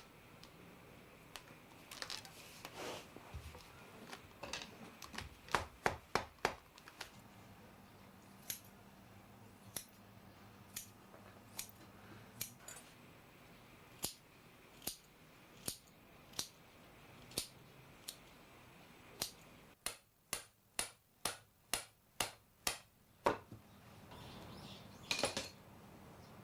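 A hand tool making a series of sharp single clicks, about one a second, then a quicker run of about two a second near the end.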